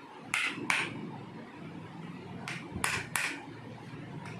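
Several short, sharp knocks, mostly in pairs about a third of a second apart.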